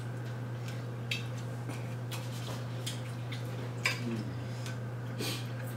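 Metal forks clicking and scraping against ceramic plates while people eat, a few scattered light clinks over a steady low hum.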